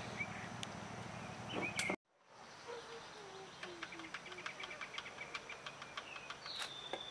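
Faint outdoor background with scattered bird chirps and ticks. A short run of low notes steps downward in the middle, and a higher whistle comes near the end. The sound drops out briefly about two seconds in.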